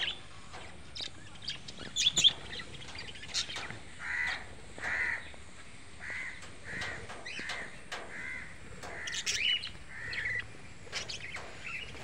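Budgerigars calling: a run of short, evenly repeated calls about one every second through the middle, mixed with sharp high chirps.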